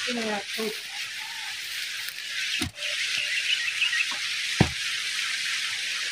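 Two dull thuds about two seconds apart, a farm hand tool striking the soil while clearing weeds around banana plants, over a steady high hiss.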